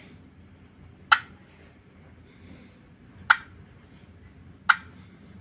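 Three sharp, separate clicks of key presses while typing on a tablet's touchscreen keyboard, a second or two apart, over a faint low hum.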